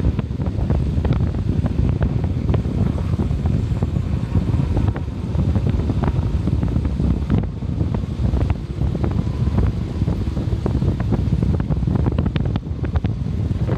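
Steady wind rumbling on the microphone of a camera on a moving vehicle, with scattered light ticks throughout.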